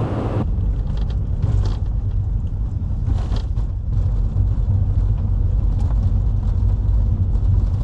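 Car driving on a snow-covered gravel road, heard inside the cabin: a steady low rumble of engine and tyres, with a few faint clicks.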